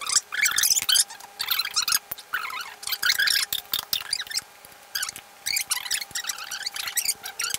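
Film dialogue played fast-forward: several voices sped up and pitched high into rapid chattering in short bursts, with a brief pause a little past the middle.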